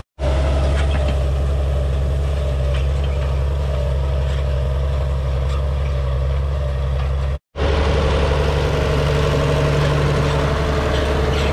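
Farmall 806's six-cylinder diesel engine running steadily under load as the tractor pulls a side-delivery hay rake through windrows. There is a brief silent gap about two-thirds of the way through.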